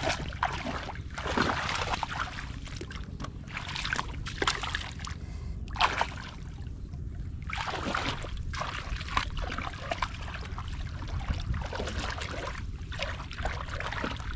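Shallow muddy water sloshing and splashing as a person wades through a ditch and gropes in the mud with bare hands. The splashes come irregularly over a steady low rumble.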